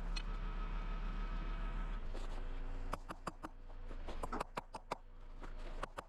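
A steady mechanical hum for about three seconds, then a quick, irregular series of sharp clicks and knocks.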